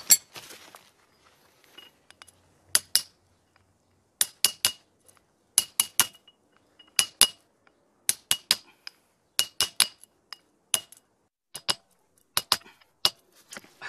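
Hammer blows driving a tapered roller bearing onto a limited-slip differential's hub: sharp metallic clinks with a short high ring, in quick groups of two to four about every second and a half. The bearing was not heated enough to slip on, so it is being pounded into place.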